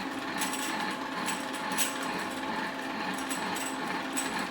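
3000GT/Stealth five-speed AWD manual transmission spun by a drill press on low speed, rattling: irregular clicks over a steady motor hum. The owner traces the neutral rattle to a shift slider, the 3/4 slider not staying centred, and not to the input shaft or throwout bearing.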